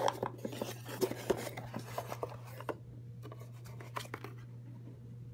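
Cardboard shipping box being opened and handled: a quick run of light scrapes and taps as the lid flaps are lifted, thinning to a few scattered taps about halfway through. A faint steady low hum runs underneath.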